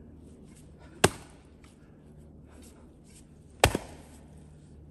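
Double-bit axe chopping into a wooden round: two sharp strikes, about two and a half seconds apart.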